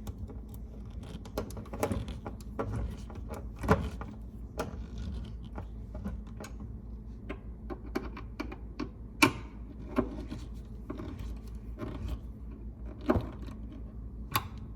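Irregular small clicks and light knocks of metal hardware being handled as a cabinet hinge is fitted and its screws driven in with a hand screwdriver, with a few sharper knocks among them.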